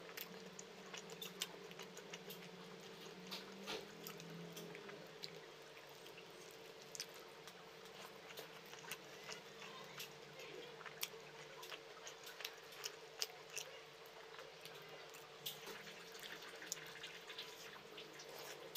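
Close-miked eating sounds: faint wet mouth clicks and smacks of chewing rice and chicken gulai eaten by hand, scattered irregularly over a faint steady hum.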